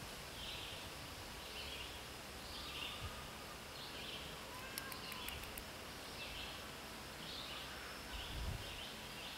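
Outdoor ambience with a faint, short, high chirp repeating about once a second, and a few light clicks near the middle as small carburetor parts are handled.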